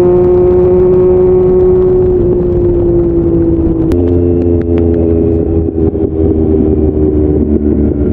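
Motorcycle engine, likely a Triumph Speed Triple's three-cylinder, running at speed and holding a steady note that sags slightly, with wind rumble underneath. About four seconds in there is a sharp click and the pitch drops abruptly, then the engine holds a steady lower note.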